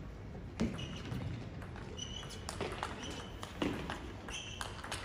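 Table tennis play: a few sharp clicks of the celluloid ball on bat and table, mixed with short high squeaks of players' shoes on the court floor.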